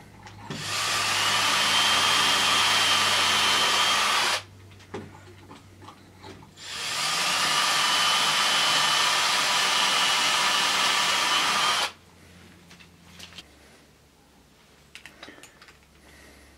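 Cordless drill boring pilot holes into wood, running twice for a few seconds each: each run starts with a rising whine, holds steady while cutting, then stops abruptly. A few light handling knocks follow near the end.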